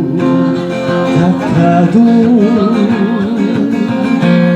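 Acoustic guitar accompanying a singer who holds a long note with vibrato in a slow ballad.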